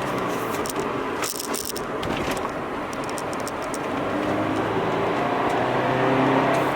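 Subaru BRZ's flat-four engine running while the car is driven, its note easing off in the first second and then rising steadily from about four seconds in as it accelerates. A few light rattling clicks come between one and two and a half seconds in.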